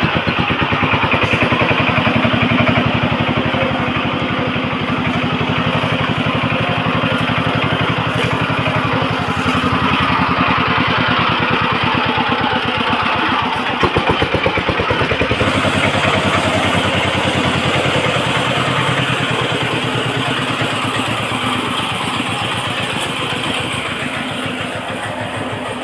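Engine of a farm machine running steadily under load, with a few sharper knocks about 14 seconds in.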